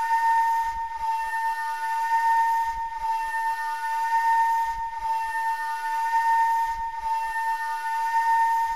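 Electronic drone from a hand-built analogue synthesizer with a 1976 hand-made voltage-controlled filter: one steady, high held tone with overtones and a faint hiss, with a soft low pulse about every two seconds.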